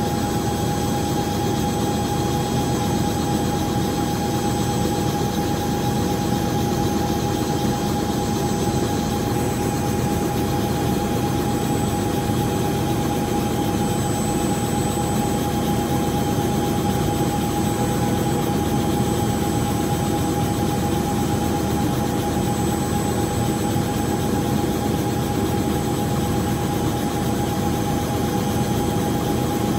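Helicopter running in steady flight: a continuous engine and rotor noise with a constant high-pitched whine over it.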